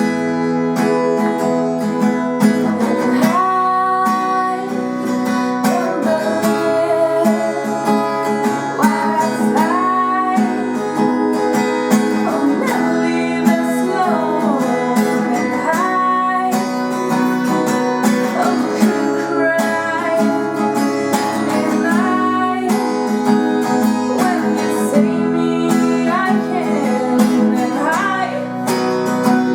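A song with acoustic guitar and a singing voice, a French-style chanson.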